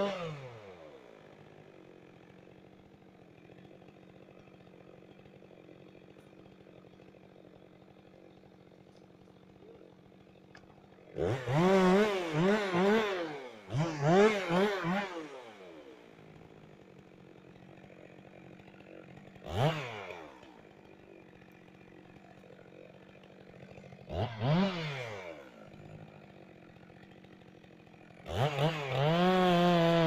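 Two-stroke chainsaw idling quietly, then blipped to full throttle in short bursts several times as it cuts branches off a felled tree's trunk; in the last couple of seconds it is held at high revs.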